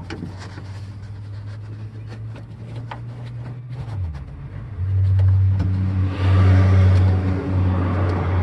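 A motor vehicle's engine running with a steady low hum, growing much louder about five seconds in, with scattered light clicks and taps in the first half.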